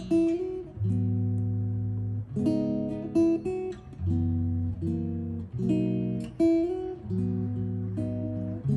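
Acoustic guitar intro of a song, chords changing every second or two over a low bass note, played back through ProAc Studio 140 MK2 loudspeakers.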